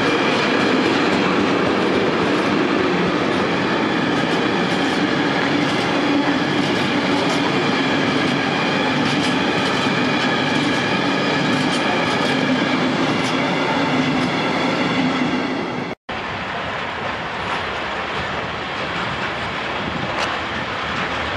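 Freight wagons of a container train rolling past on the rails with a steady ringing whine and occasional clicks over rail joints. About 16 seconds in it cuts off and gives way to a quieter rolling of a train of loaded open wagons being propelled through the station.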